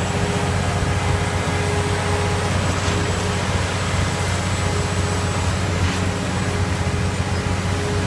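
Heavy engine of concrete-pouring machinery running steadily, a dense low rumble with a faint steady whine above it.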